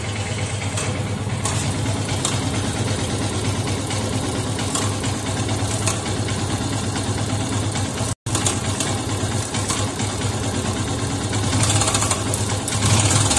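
Yamaha FZS V3's single-cylinder engine idling steadily with a cam chain rattle, the sign of a loose, worn timing chain.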